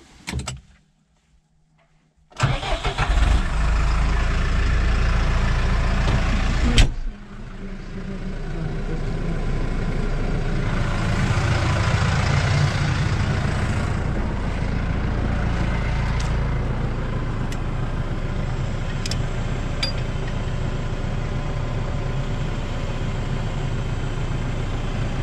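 A tractor's diesel engine starts up a couple of seconds in and runs loudly. Near 7 seconds its sound drops sharply, then builds back up over a few seconds and settles into steady running.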